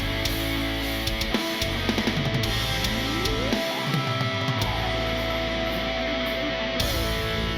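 Rock music with electric guitar and drums; about three seconds in, a note slides up and is held for several seconds.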